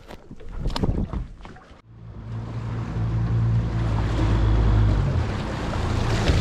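A boat underway: an outboard motor running with wind and water rushing past, starting about two seconds in after a few sharp knocks, the engine's low hum dropping back about five seconds in as the boat is repositioned for a new drift.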